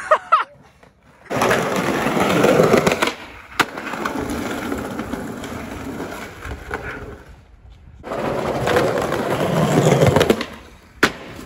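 Skateboard wheels rolling over paving slabs in two long runs. Sharp clacks of the board hitting the ground come about three and a half seconds in and again near the end.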